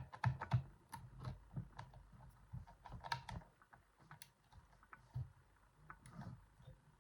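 Irregular small clicks and taps of a homemade pick working the sliders inside a Yuema-style lock, with light handling knocks.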